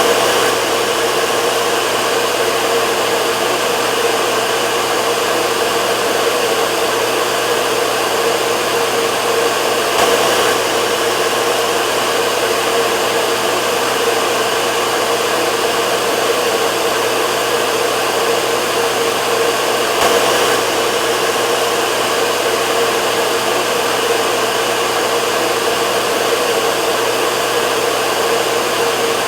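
Hair dryer running steadily: an even rush of blown air with a constant hum underneath, and a faint brief bump about every ten seconds.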